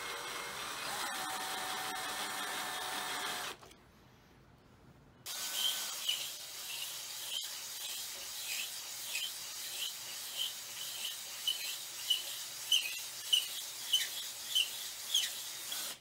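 Ryobi 18V cordless drill spinning a countersink bit to deburr a hole in a steel tube, a steady whine for about three and a half seconds. After a short pause, a stone cylinder hone scrapes around inside the steel bore, a steady scraping hiss with a sharp peak about every half second as it is worked in and out, growing louder near the end.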